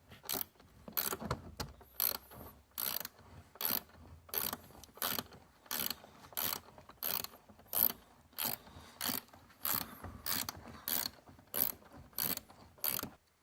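Ratchet wrench tightening the bolts of a new car door hinge, clicking in short bursts with each back-swing, about one every two-thirds of a second.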